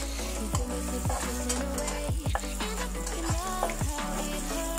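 Sliced chicken sausage and aromatics sizzling in oil in a wok over a turned-down gas flame, a spatula stirring and scraping through them. Background music plays over it.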